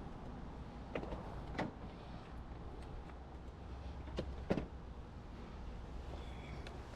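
Four light clicks and knocks from handling equipment: two about a second in and two about four seconds in, the last the loudest, over a low steady hum.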